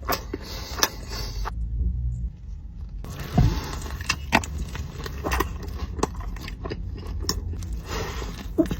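Close-up chewing and biting into crispy fried chicken, with sharp crunches and crackles scattered throughout.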